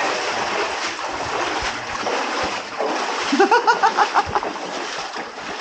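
Splashing of someone wading through water, steady throughout, with a short run of vocal sounds from a person about three and a half seconds in.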